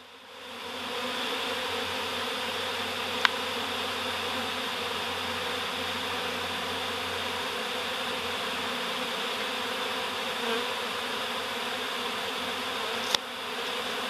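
A swarm of honey bees buzzing steadily at an empty hive box they are moving into: a dense hum that swells in over the first second, with two sharp clicks, one about three seconds in and one near the end.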